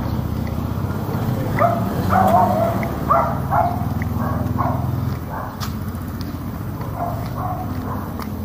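A dog barking in a quick run of short barks between about one and a half and five seconds in, then fainter barks. Underneath is the low rumble of a passing vehicle's engine, which fades about five seconds in.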